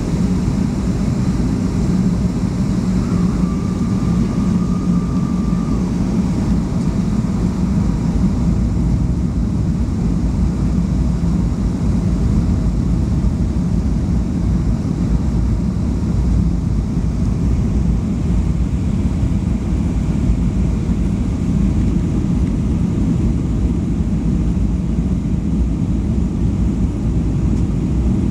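Steady cabin noise inside a Boeing 737-200 in flight: the roar of its JT8D turbofan engines and the airflow over the fuselage, with a low hum underneath. A faint thin tone sounds for about three seconds a few seconds in.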